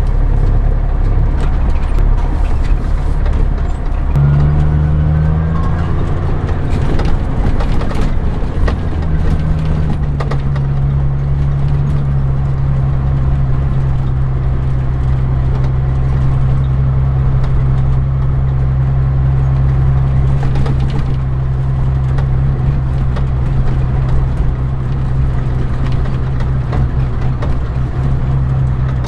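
Grain truck engine running steadily under way; its pitch shifts a few times in the first ten seconds, then holds steady.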